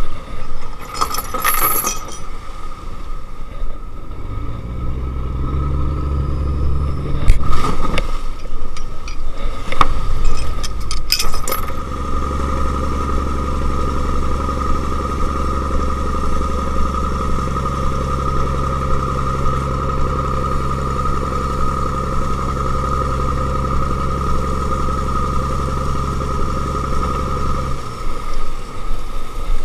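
Fishing trawler's engine running under way, picking up in pitch a few seconds in and then holding a steady note with a steady whine above it, while it tows the net through rough sea. A few sharp knocks sound in the first dozen seconds, and the engine note drops away near the end.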